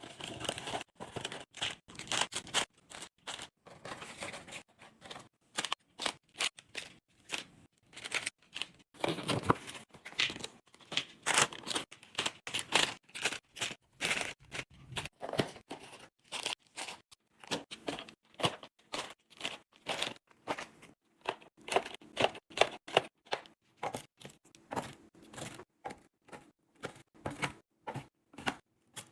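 Food packaging being handled during a restock: plastic and paper crinkling and tearing and items knocking as they are set down. It comes in quick short bursts, each cut off sharply by a brief silence.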